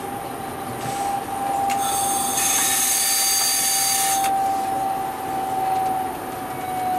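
Alstom Coradia Meridian ETR425 electric train running, heard from the driver's cab: a steady electric drive whine that slowly falls in pitch over the running rumble. About two seconds in, a high hiss with squealing tones lasts a couple of seconds, typical of wheel squeal on the curve.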